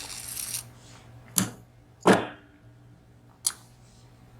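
Brief handling rustle, then three separate sharp metallic clicks: small parts of a disassembled VSR dimple lock knocking against a hard surface.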